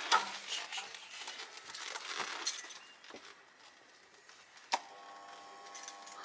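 Light rustling and clinks of handling, then about three-quarters of the way in a click and an electric door buzzer sounding steadily for about a second and a half.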